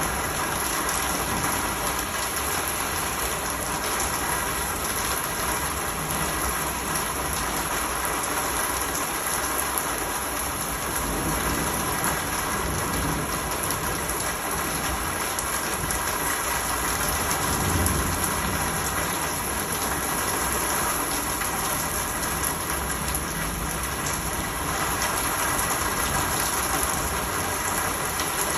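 Steady rain falling, an even hiss with no break. A brief low rumble comes a little past the middle.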